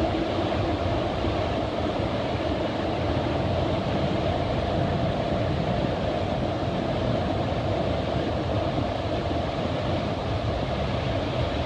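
Fukiware Falls' waterfall: a steady, unbroken rush of falling water.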